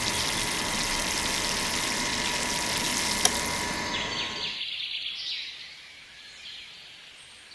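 A steady rushing noise that drops away about four and a half seconds in, leaving faint high bird chirps over a quiet background.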